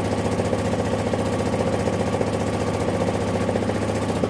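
A motorboat's engine running steadily while under way, with a fast, even chugging pulse.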